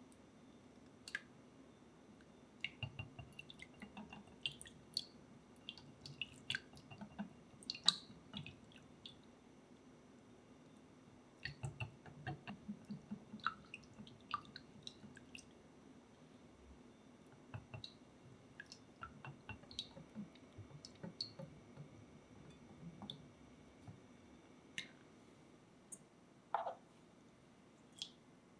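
A silicone-coated whisk beating egg yolks into a thin batter of milk, butter and oil in a glass bowl: quick soft clicks of the whisk against the glass and light splashing, in bursts with pauses. One louder knock comes near the end.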